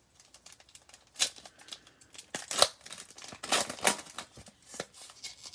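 Foil trading-card pack wrapper being torn open and crinkled by hand, a string of crackling rips with the loudest about a second in, around two and a half seconds in, and near four seconds. The corner of the wrapper resists tearing.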